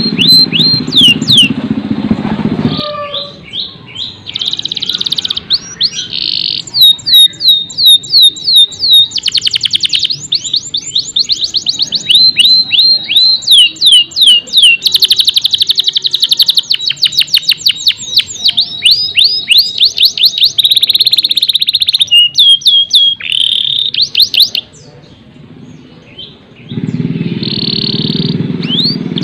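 Canary singing in phrases of rapid repeated falling whistles and fast trills, pausing for about two seconds near the end. A low steady noise lies under the song at the start and again near the end.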